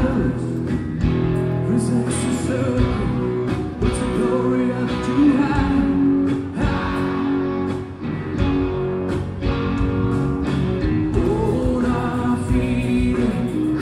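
Live rock band playing: a singer over electric guitars, bass guitar and a drum kit, heard from within the audience.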